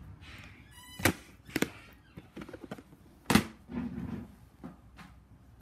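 Plastic VHS clamshell case being handled and snapped shut: a brief squeak, then a few sharp plastic clicks and knocks, about a second in, again half a second later, and the loudest a little over three seconds in.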